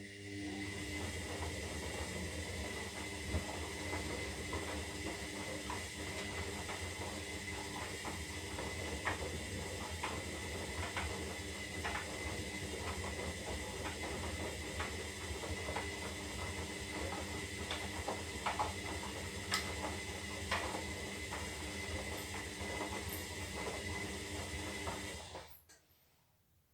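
Zanussi Lindo 300 washing machine running mid-cycle: a steady hum with a high whine and scattered clicks and knocks. It starts suddenly and cuts off sharply near the end.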